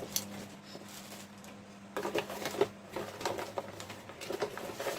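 Packaging being handled while a curling iron is unboxed: irregular clicks, taps and rustles, thicker from about two seconds in, over a faint steady hum.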